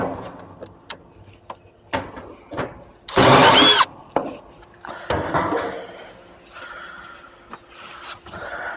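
Scattered clicks and knocks from hands and tools working in an air-conditioner condensing unit's electrical compartment, with one loud noisy burst lasting under a second about three seconds in.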